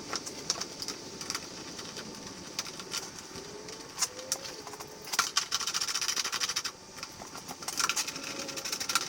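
Hand work on a dirt bike's bodywork: scattered clicks and clatter of tools and plastic parts as the side plates are fitted, with a stretch of rapid clicking about five seconds in lasting a second and a half, and another short burst near the end.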